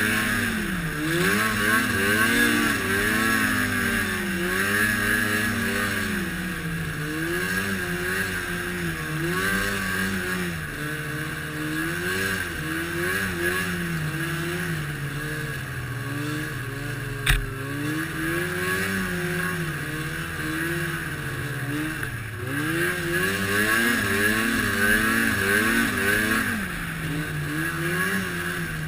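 Arctic Cat snowmobile engine running under way, its pitch rising and falling again and again with the throttle, with a steady high whine alongside. A single sharp knock about seventeen seconds in.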